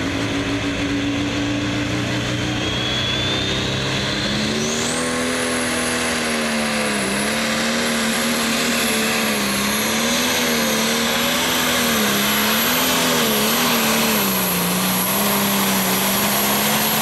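Single-turbo diesel engine of a John Deere Pro Stock pulling tractor at full throttle pulling the sled. About four and a half seconds in a high turbocharger whine shoots up and then holds, while the engine note underneath wavers up and down with the load.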